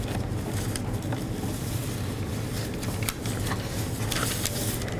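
Steady room noise through the podium microphone, with a low hum and scattered small clicks and knocks.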